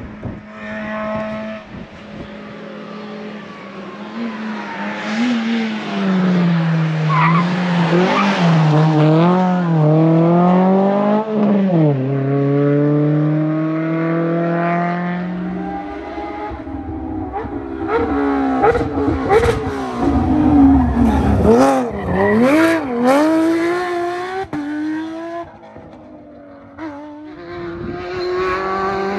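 Rally cars at full stage pace, engines revving hard and pitch sweeping up and down with gear changes and lifts. One car passes in the first half, and another after a cut about halfway through.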